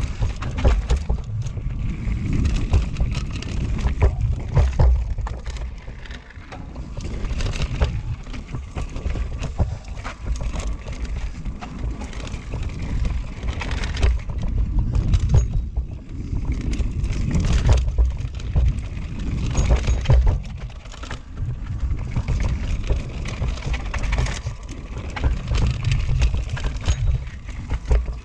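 Norco Range carbon enduro mountain bike descending fast over loose dirt and rock: a constant rattle and clatter of knocks and clicks from tyres, frame and drivetrain over a heavy low rumble. The noise swells and eases every few seconds as the trail gets rougher and smoother.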